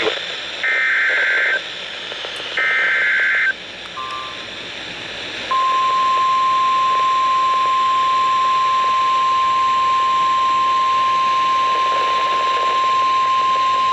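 NOAA Weather Radio alert start: two harsh, warbling SAME digital header bursts about a second each, then, about five and a half seconds in, the steady 1050 Hz warning alarm tone, over constant radio hiss. It signals that a new warning is about to be read.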